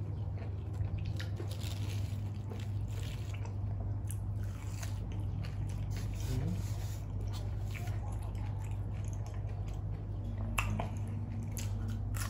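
Close-up chewing of a mouthful of raw shrimp with fresh herbs: wet, crunchy bites and mouth clicks, with a steady low hum underneath.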